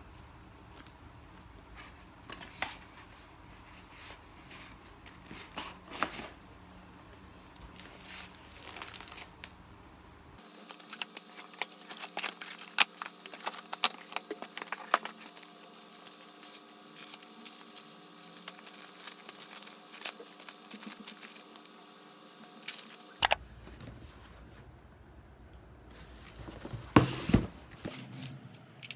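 Packaging being handled and torn open: crinkling and tearing of plastic or paper mailer bags, with many scattered sharp clicks and rustles.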